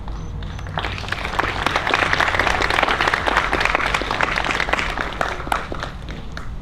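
Audience applauding: many people clapping, starting about a second in, swelling, then thinning out near the end.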